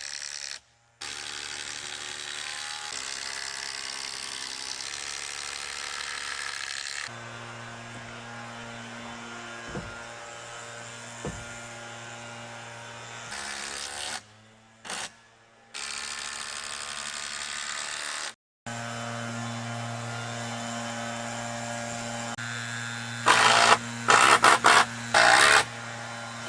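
A steady machine hum, cut off abruptly several times, with a quick cluster of loud sharp knocks near the end.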